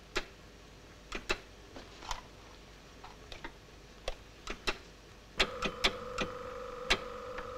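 Irregular sharp clicks of keys and switches on an electronic safecracking device. About five and a half seconds in, a steady electronic tone starts and holds under further clicks.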